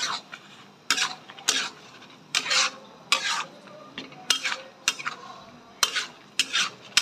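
A metal spoon stirs and scrapes a thick, mashed yam curry around a kadai in repeated strokes, roughly one a second. Several strokes end in a sharp clink of metal on the pan.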